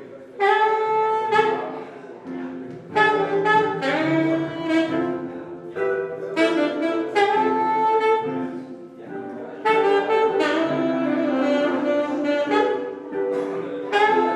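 Saxophone playing short jazz phrases that start about every three seconds, over lower held notes and acoustic archtop guitar accompaniment.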